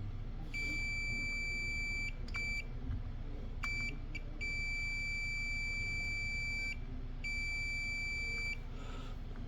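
Digital multimeter beeping in continuity/diode-test mode as its probes touch a transistor's pins on a TV power board. It gives one steady high tone in several beeps of uneven length, some long and some brief blips, which the technician takes as the sign that the transistor is defective.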